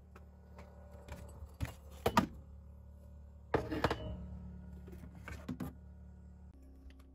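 Ceramic mugs and dishes knocking and clinking as a mug is taken from a wooden cupboard, with the loudest knocks about two seconds in and again around three and a half seconds. Under it runs a steady low hum from the portable generator, which is charging the camper's batteries.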